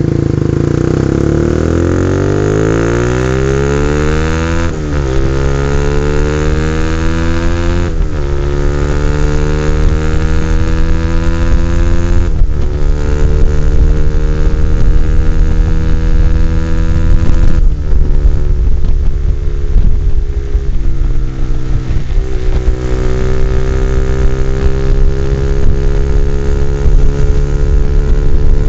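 Honda CBR150R single-cylinder engine through an NJT Racing tri-oval exhaust with the DB killer removed, accelerating up through the gears. The pitch climbs in each gear and drops at about five upshifts, then holds a steadier cruising note near the end.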